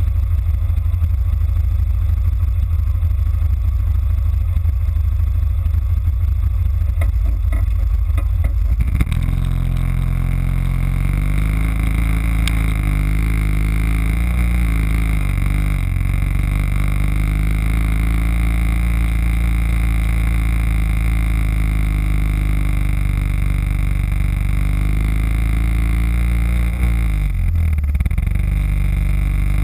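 Yamaha Kodiak ATV's single-cylinder engine running as the quad drives over rough ground, heard muffled through a bumper-mounted camera housing. A dull low rumble for the first nine seconds gives way to a clearer engine note that rises and falls in pitch with the throttle.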